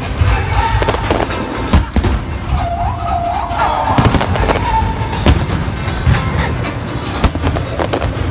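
Aerial fireworks bursting: sharp bangs about once a second over a continuous low rumble.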